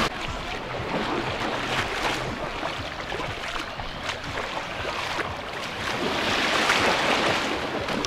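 Baltic Sea surf washing onto the beach, the wash swelling to its loudest about seven seconds in, with wind rumbling on the microphone.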